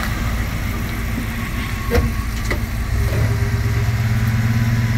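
A vehicle engine idling with a steady low hum that grows louder and deeper about three seconds in, with two short clicks around two seconds in.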